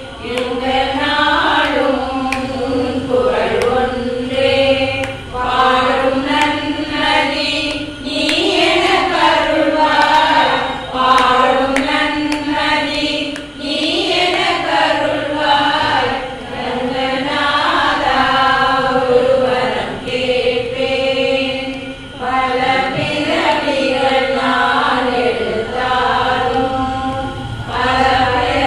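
A group of women singing a Tamil devotional song to Lord Ranganatha together in unison, in long drawn-out melodic phrases with brief pauses between lines.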